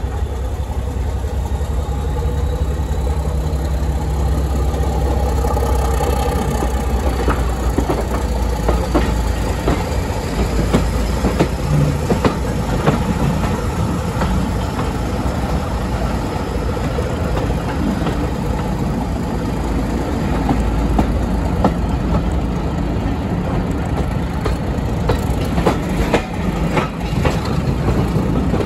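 Train ride heard from a carriage behind a Class 31 diesel locomotive. A steady low diesel engine hum gives way, about six seconds in, to rolling wheel-on-rail noise with many clicks and rattles.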